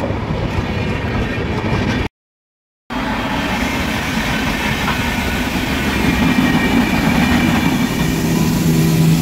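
Indian Railways electric freight locomotive, a twin-section WAG-12B, running past close by with its wheels rumbling and clattering over the rail joints. The sound breaks off completely for under a second about two seconds in, and a steady low hum joins near the end.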